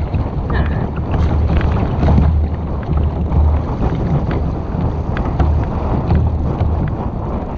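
Wind buffeting the camera's microphone: a loud low rumble that swells and drops in gusts.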